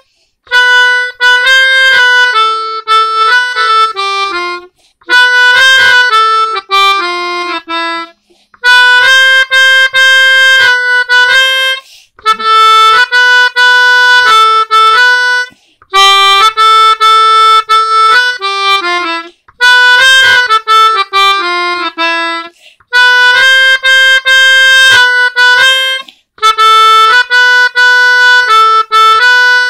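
Melodica played by hand: a simple single-line melody of reedy sustained notes, in phrases of a few seconds broken by short pauses.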